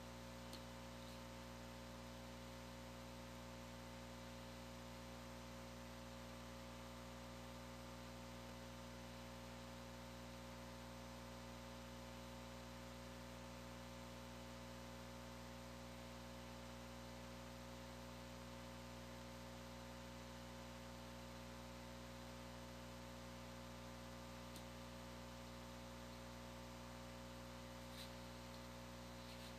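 Faint steady electrical hum with a light hiss, broken by a few soft clicks about half a second in and again near the end.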